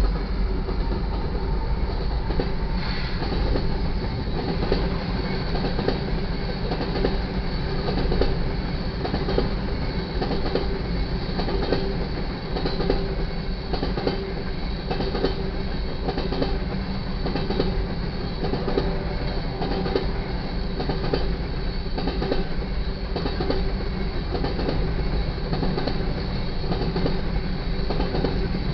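Covered hopper cars of a freight grain train rolling past at speed: a steady heavy rumble with the clatter of wheels on the rails.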